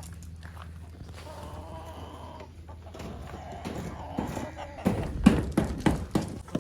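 Chickens clucking, with a drawn-out call about two seconds in and louder, sharper clucking near the end.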